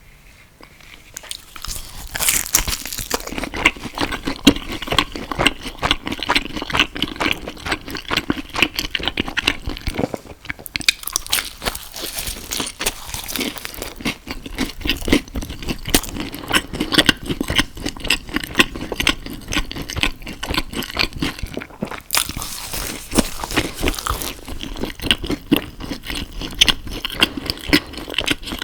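Close-miked mouth sounds of someone biting and chewing food, heard as dense, irregular crackly clicks. They start about two seconds in and carry on with only brief pauses.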